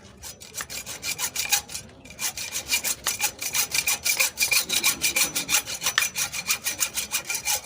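Hacksaw blade sawing through the protruding steel body of a spark plug threaded into a transmission case as a makeshift thread insert, in rapid back-and-forth strokes that settle into a steady fast rhythm about two seconds in.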